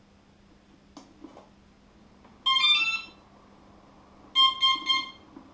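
Brushless motor's electronic speed controller powering up and playing its startup beeps through the motor: a short melody of tones changing pitch, then three quick beeps at one pitch. These are the controller's power-on tones before arming. A couple of faint clicks come about a second in as the power is connected.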